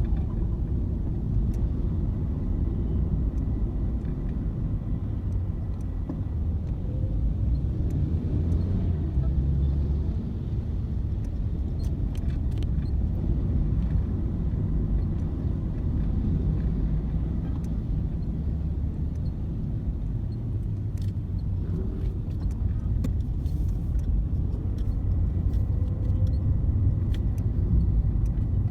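Car on the move: a steady low rumble of engine and road noise, with a few faint light ticks.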